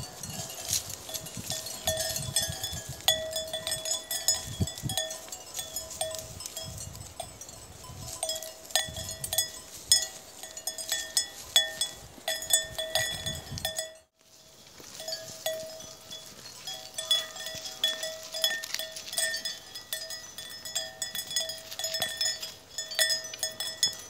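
Bells on grazing cattle clanking irregularly, the same few ringing notes struck over and over. Low dull rumbles run under it in the first half, and the sound drops out briefly about two-thirds of the way through.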